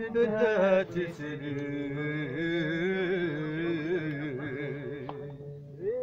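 A man singing, holding one long, drawn-out phrase whose pitch wavers up and down throughout, with no clear instrument behind it.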